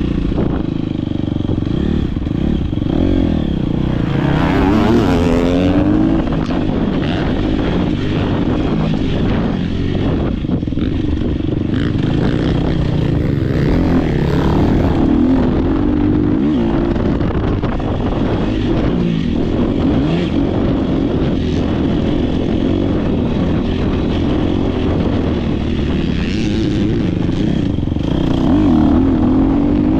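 Dirt bike engine being raced hard, its pitch rising and falling again and again with throttle and gear changes, with occasional knocks.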